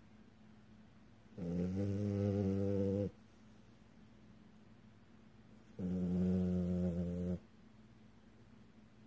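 French bulldog snoring in its sleep: two long, pitched snores about four seconds apart, each lasting about a second and a half. Snoring of the kind the breed's short, snub nose brings.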